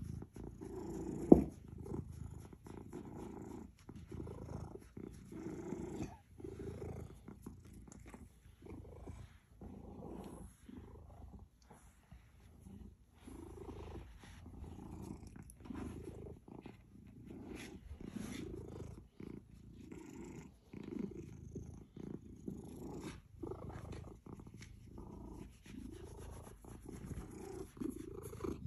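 Orange tabby cat purring while her head is scratched, the purr swelling and fading with each breath, about every one and a half seconds. A single sharp tap about a second in.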